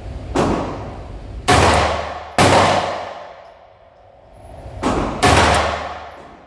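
Five 9mm pistol shots from a Beretta APX A1 FS, three spaced about a second apart, then a pause and two more in quick succession. Each shot is followed by about a second of echo.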